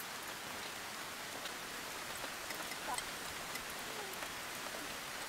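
Faint steady hiss of background noise, with a few light clicks and a brief faint voice about three seconds in.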